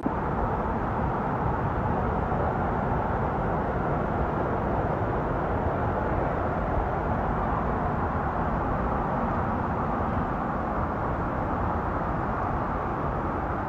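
Steady rushing of a river or waterfall, a loud even wash of water noise with no break.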